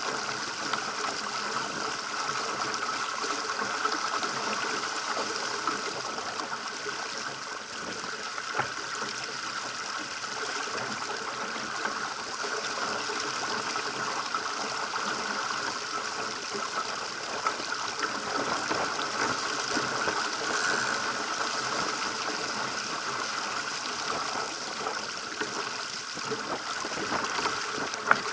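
Water rushing and splashing along the hull of a Pacer sailing dinghy moving fast through choppy water, a steady hiss. A few small knocks come through it, and a sharper one near the end.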